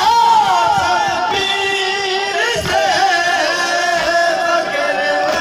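A noha, a Muharram mourning lament, sung in long wavering phrases that glide up and down in pitch, over the noise of a large crowd.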